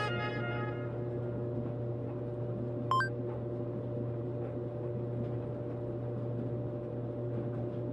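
Steady low hum of laundry machines running, with a brief rising electronic blip about three seconds in.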